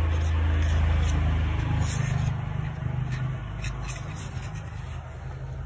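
A low motor rumble, loudest at first and easing off after about two seconds, with a few faint clicks.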